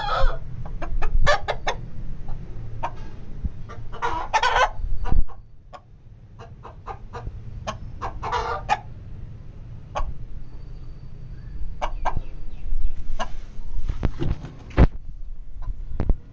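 Gamecock (rooster) calling: the end of a crow right at the start, then short clucking calls about four and eight seconds in and a fainter one near the end. Scattered sharp clicks and a steady low rumble run underneath.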